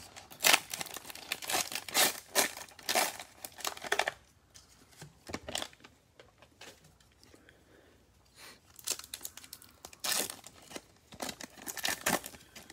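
Foil wrappers of Panini Mosaic football card packs crinkling and tearing as they are ripped open by gloved hands, in two bouts: a dense one lasting about four seconds, then quieter handling, then another starting about nine seconds in.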